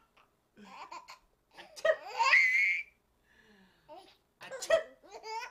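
A baby laughing in short bursts of belly laughter with brief pauses between, the loudest a long high-pitched laugh about two seconds in.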